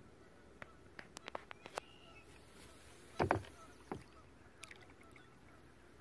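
Splashing on the water: a few light taps, then one louder splash a little over three seconds in and a smaller one about a second later.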